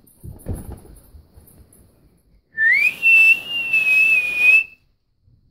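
A person whistling to call a dog: about halfway through, one note slides up and is held, wavering slightly, for about two seconds over a rustling hiss. A low thump comes about half a second in.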